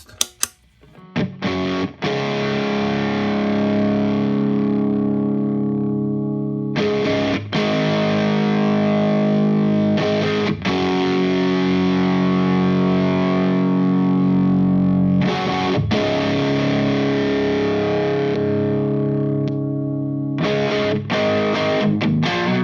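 Electric guitar played through the drive side of a Valco Bloodbuzz drive/fuzz pedal into an Engl Powerball 2 amp's clean channel and a 4x12 cabinet: a few picked notes, then distorted chords each left to ring for several seconds, with quicker choppy strums near the end.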